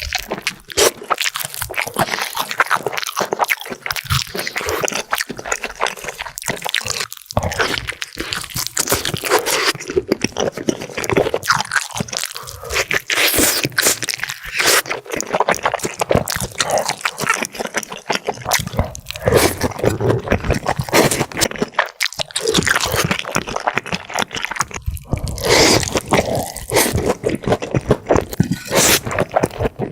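Close-miked eating sounds: crunchy bites into fried chicken and chewing, one crunch after another.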